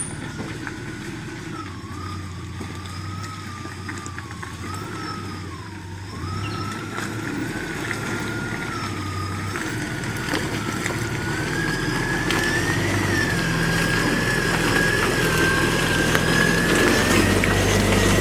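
A 4WD vehicle driving. A wavering whine climbs slowly in pitch over a low, steady engine note, and the sound grows gradually louder.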